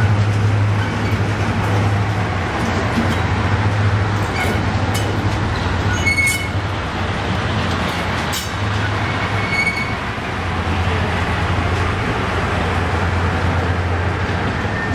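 Class 55 Deltic diesel locomotive with its twin Napier Deltic engines running steadily as it draws past hauling coaches, a constant low hum. About four to six seconds in and again near ten seconds there are a few short high squeals and clicks from the wheels on the rails.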